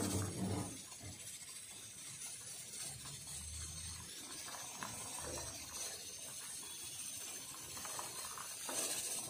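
Steel ladle stirring and clinking faintly in a pot of simmering dal sambar, over a steady hiss, with a louder stir near the end.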